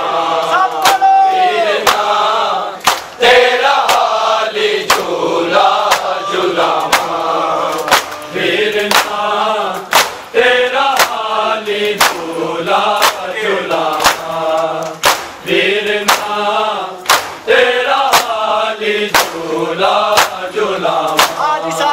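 Men chanting a Muharram lament (noha) in a repeating melody. Sharp chest-beating slaps (matam) keep time with it, about one a second.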